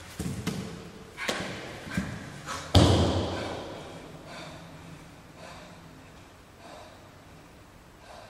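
A few heavy thuds in quick succession, the last and loudest about three seconds in, its boom ringing on and fading in a large, echoing hall.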